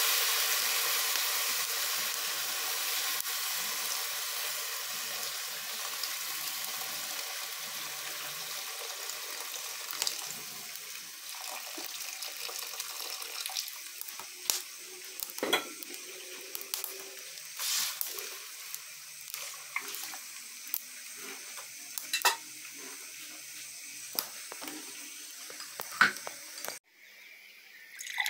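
Water poured from a kettle into a hot pot of rice on a wood-burning stove, hissing loudly at first and fading over several seconds. After that come scattered sharp clicks and knocks.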